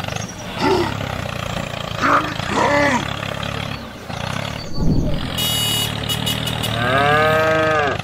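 Low, steady engine drone of a toy tractor that stops about halfway through. Several pitched, call-like sounds rise and fall over it, the longest near the end lasting about a second and a half. A dull thud and a short high-pitched ringing come around the middle.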